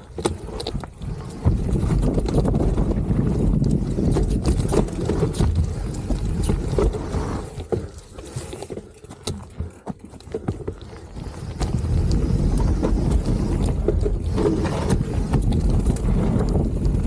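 A full-suspension mountain bike rolling fast down a dirt trail strewn with dry leaves: a low rumble of wind on the body-mounted camera and tyre noise, with many clicks and rattles from the bike jolting over roots and bumps. It goes quieter for a few seconds about halfway through, then picks up again.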